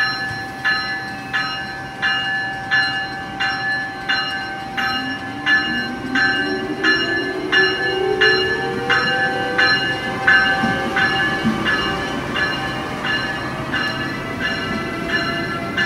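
Amtrak ACS-64 electric locomotive pulling out, its bell ringing steadily at about one and a half strokes a second. Under the bell, a whine rises in pitch as the train picks up speed, with a steady high tone alongside.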